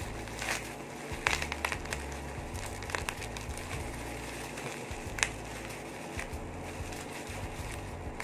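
Bubble wrap and plastic packaging crinkling and crackling as it is pulled apart by hand, with scattered sharp crackles.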